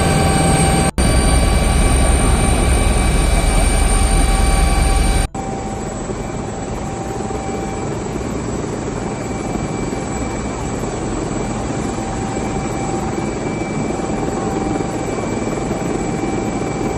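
Helicopter turbine and rotor running steadily, with a high turbine whine over the engine noise. About five seconds in the sound cuts abruptly to a quieter, thinner take of the same running helicopter.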